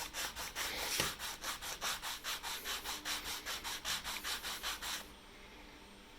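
Sanding sponge rubbed rapidly back and forth over the sawn edge of a GoPro mount piece, about four to five scratchy strokes a second, smoothing out the crooked hacksaw cut. A single knock about a second in; the sanding stops about five seconds in.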